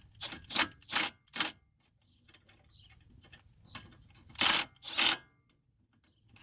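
A power ratchet spinning a 12 mm bolt down in short bursts: four quick bursts, then two more about three seconds later.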